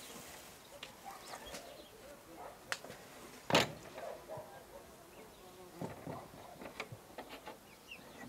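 Old wooden picket garden gate being handled and shut: one sharp wooden knock about three and a half seconds in, among faint scattered clicks and rattles.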